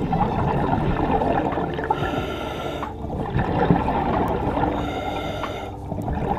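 Underwater water noise from a diver's breathing: bubbling and rushing that swells and dips about every three seconds.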